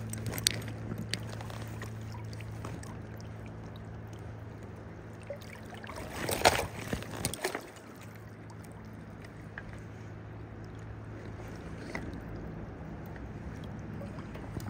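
River water flowing steadily under a low hum, with a short louder burst of splashing and handling about six seconds in as a rainbow trout is taken from the landing net.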